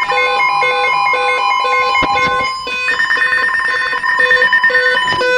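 Several emergency alert tones sounding over one another: a low pulsing beep, a steady higher tone, and a higher rapidly pulsing tone that joins about three seconds in. It is the alert signal that comes before a severe thunderstorm warning is read out.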